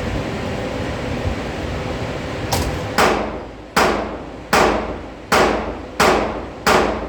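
Glock 20 pistol in 10mm Auto fired in steady rapid succession, six loud shots roughly three-quarters of a second apart starting about three seconds in, each ringing out in the indoor range.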